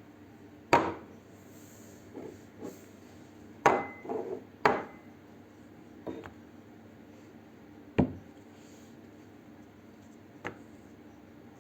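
A handful of sharp, irregular knocks and taps on a hard surface, with quieter taps and a little rubbing between them, over a faint steady hiss.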